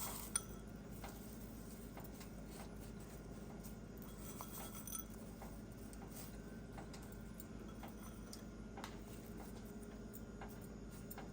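Faint, scattered clinks of kitchen utensils against a cooking pot while toppings are spread over layered biryani, with one sharper clink about half a second in, over a low steady hum.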